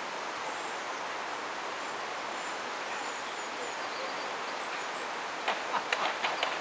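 Steady outdoor background hiss with a few faint, high bird chirps. About five and a half seconds in comes a quick run of five or six sharp clicks and knocks.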